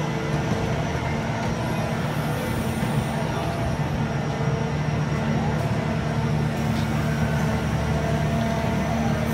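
The Grand Éléphant, a giant walking machine, running its diesel engine with a steady low drone as it moves along.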